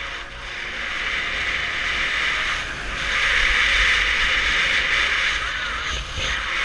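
Snowboard sliding and carving over firm, chopped-up snow: a steady scraping hiss that grows louder about three seconds in, over a low rumble of wind on the microphone.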